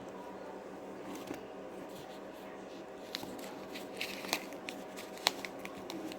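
Faint handling noises in a small room: scattered light clicks and rustles, one sharper click about five seconds in, over a steady low hum.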